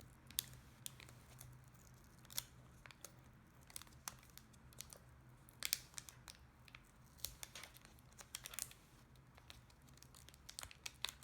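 Adhesive tape being peeled and plastic parts being handled as a laptop LCD panel is detached: faint, irregular crackling with scattered sharp ticks.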